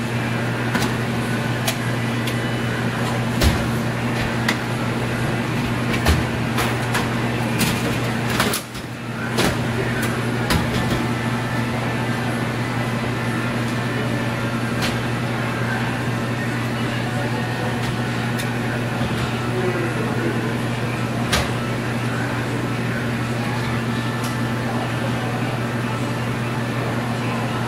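A steady low machine hum with a higher overtone, with scattered knocks and clatters of plastic as clear product trays are set into a vending machine shelf.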